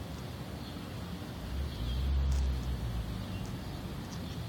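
A car's low engine rumble swells about two seconds in and fades again, as a vehicle passes.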